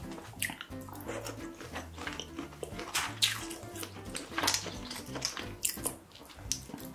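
Sticky, wet squelches and clicks of sauce-coated food being pulled apart by hand, many short sharp sounds, over background music with a steady bass line.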